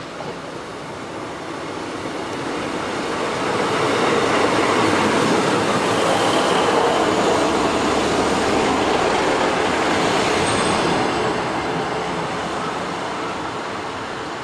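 Class 150 Sprinter diesel multiple unit running into the station close past the platform edge. Engine and wheel-on-rail noise builds for the first few seconds, stays at its loudest through the middle, then fades as the train draws away along the platform.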